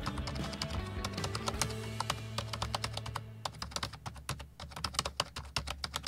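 Rapid, irregular keyboard typing clicks over background music; the music stops about halfway through, leaving the typing clicks alone.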